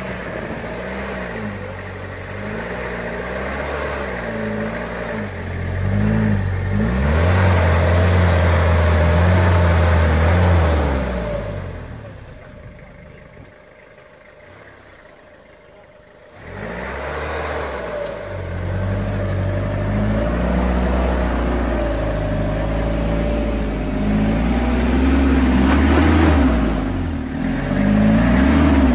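Toyota Hilux SR5's 2.8 diesel engine labouring and revving up and down as the pickup climbs loose dirt in four-wheel-drive low range. It falls away for a few seconds in the middle, then picks up again.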